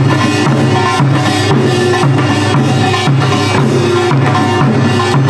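Korean traditional music with a steady drum beat, about two strokes a second, under sustained melodic instruments.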